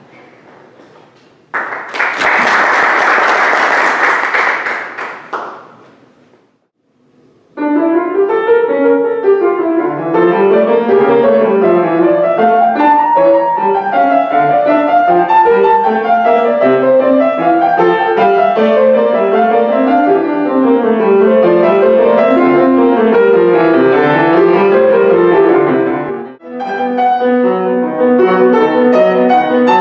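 A short burst of applause that dies away, then solo piano playing a piece of flowing, repeated rising-and-falling arpeggio figures. Near the end it pauses briefly and goes on with a passage of steadier repeated notes.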